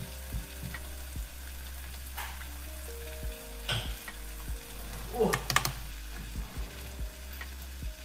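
Clicks and scrapes of hands and a utensil working at roasted butternut squash, with a louder cluster of clicks about five seconds in, over soft lo-fi background music.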